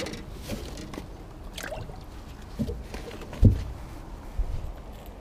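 Handling noises on a small boat: a few dull knocks and rustles, the loudest about three and a half seconds in, over a low wash of water sound.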